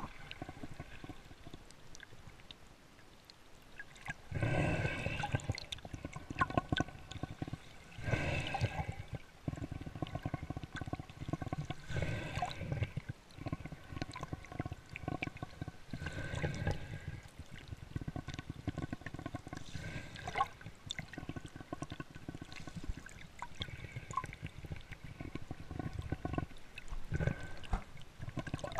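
Water gurgling and sloshing around an underwater camera as a snorkeler swims just below the surface, with louder swells about every four seconds and small bubbly clicks in between.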